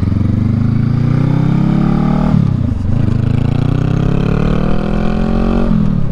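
Honda Rebel 500's parallel-twin engine accelerating hard from a stop. The engine note climbs in pitch, drops at an upshift about two seconds in, climbs again and drops at a second upshift near the end.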